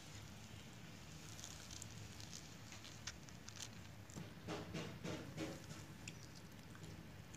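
Fried fish being broken apart by hand on paper: soft crinkling of the paper and small crackles of the crisp skin, busiest about four to five and a half seconds in.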